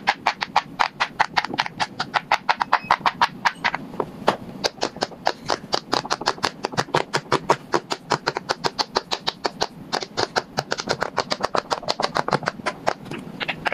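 Bubbles of a large square silicone pop-it fidget toy being pressed down in quick succession with both hands: a rapid, uneven run of soft pops, about seven or eight a second.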